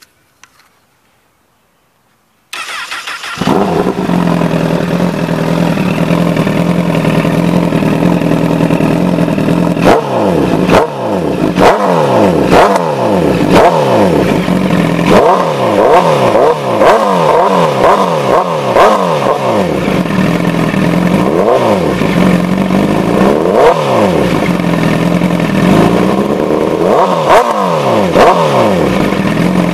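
Honda CBR1000RR inline-four engine starting about two and a half seconds in through a LePi Soldato stainless-steel aftermarket exhaust, settling into a steady idle. From about ten seconds on it is revved in repeated quick throttle blips, each rising and falling back, with short stretches of idle between them.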